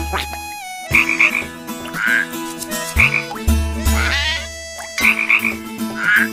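Cartoon giant frog croaking in a regular repeating cycle: a cluster of short high calls about every two seconds and a deep low croak about every four seconds.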